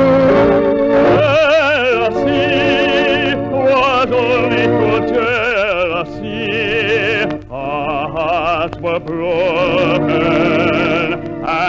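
A singer in an operatic style holds long notes with wide vibrato over musical accompaniment, at the opening of a ballad. A sustained organ chord carries over at the start before the voice comes in.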